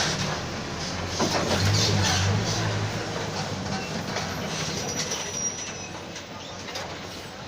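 Mercedes-Benz OF-1722M city bus under way, its diesel engine running with the differential growling. The noise swells about a second in, then slowly eases off, and a thin high whine comes through near the middle.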